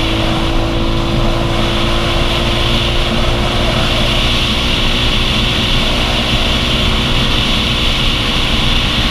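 Motorcycle engine running steadily at cruising speed, with wind rumbling on the microphone.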